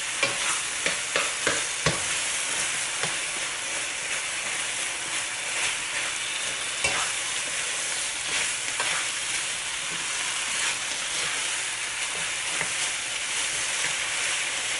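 Shrimp, onion and chili in a thick curry sauce sizzling in a nonstick wok as a slotted spatula stirs and scrapes through them: a steady frying hiss with scattered clicks and scrapes of the spatula against the pan, busiest in the first two seconds.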